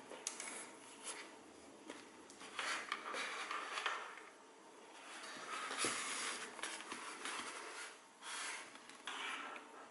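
Handling noise from FPV goggles being moved against each other: scratchy rustling of the Quanum V2 Pro box goggle's cloth cover in three or four bursts, with a few light clicks and knocks.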